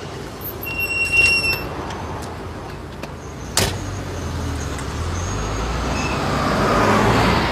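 Taxi: a brief high squeal about a second in, a car door shutting with one sharp knock midway, then the car's engine and tyre noise rising steadily as it pulls away.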